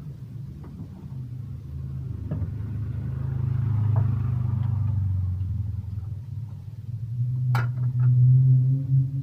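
Low engine rumble that swells twice, with a single sharp clank near the end.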